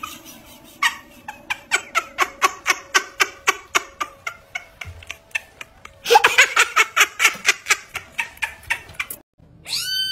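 A person giggling, a long string of short laughs at about four a second, louder over the last few seconds. Near the end a kitten meows once, a long falling cry.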